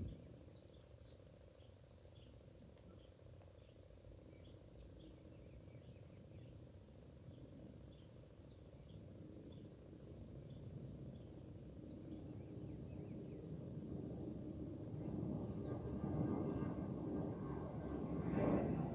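An insect trilling steadily in a high, fast-pulsing tone, with a low rumble building up over the second half and loudest near the end.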